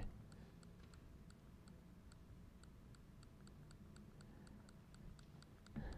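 Near silence: faint room tone with a soft, evenly spaced ticking, about three ticks a second.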